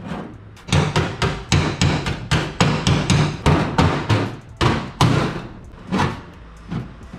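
Claw hammer striking the aluminium bow of a jon boat where a reinforcing aluminium plate is being fitted: a quick run of sharp metallic blows, about three a second, then two lighter knocks near the end.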